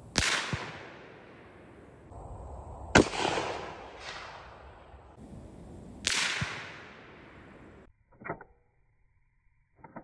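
Three rifle shots about three seconds apart, each a sharp crack with a long echo fading across open ground; a faint knock follows the first and third about half a second later. Near the end, a few small clicks from handling the rifle's scope.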